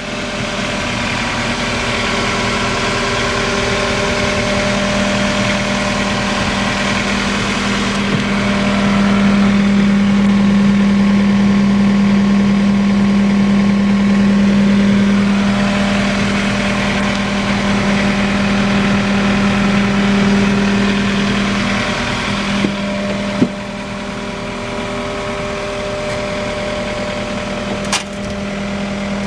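The diesel engine of a John Deere 317G tracked skid steer running steadily at idle. It grows louder through the middle and eases back about three-quarters of the way through. A few short sharp knocks come near the end.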